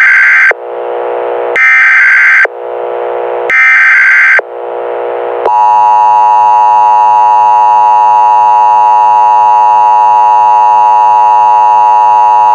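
Emergency Alert System signal: three short, shrill digital SAME header data bursts about two seconds apart, with a quieter, lower sound in the gaps between them. About five and a half seconds in, the steady two-tone EAS attention signal begins and holds.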